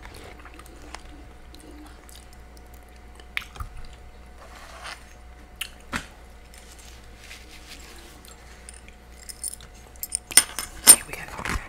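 Close-up chewing and mouth sounds of a person eating soft curry chicken and steamed purple cabbage. A quick cluster of sharp clicks and scrapes near the end, as a metal fork scoops food off a paper plate, is the loudest sound.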